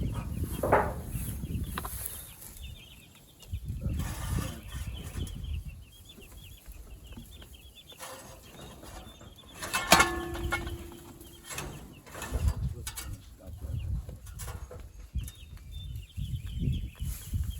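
Meat chickens clucking and peeping, with knocks and rustling from handling close by. About ten seconds in comes one sharp, loud knock that rings briefly.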